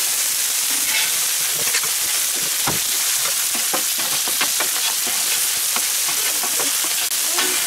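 Chicken skewers and vegetables sizzling on the hot steel plate of a fire-ring griddle, a steady hiss broken by frequent short scrapes and taps as a metal spatula scoops the grilled vegetables off the plate into a steel bowl.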